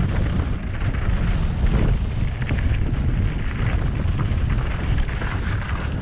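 Wind buffeting a helmet-mounted camera's microphone on a fast downhill mountain-bike descent, over a heavy rumble of tyres on boardwalk and dirt, with many small rattles and clatters from the bike.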